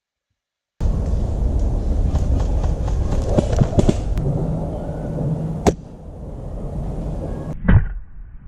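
Loud wind and handling rumble on a gun-mounted camera mic during airsoft play, with scattered clicks, one sharp crack about five and a half seconds in and a loud knock near the end.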